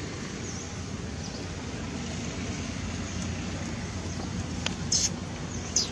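Steady low outdoor background rumble, with two short high-pitched squeaks from a newborn macaque near the end.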